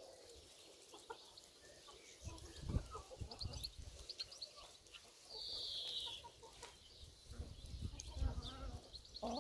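A flock of hens clucking softly as they forage on grass, in scattered short calls, with one short high call about five seconds in and a few low bumps.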